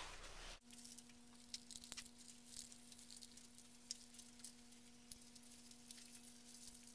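Small scissors snipping through a sheet of paper, with the paper rustling as it is handled: faint, crisp, irregular snips and crinkles over a steady low electrical hum.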